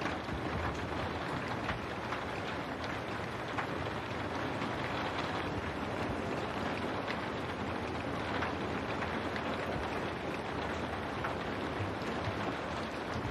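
Steady rain on window glass: an even hiss of rainfall with scattered sharper drop ticks.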